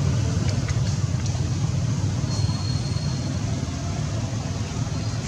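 Steady low rumbling background noise, with a few faint clicks in the first second and a faint thin high tone around the middle.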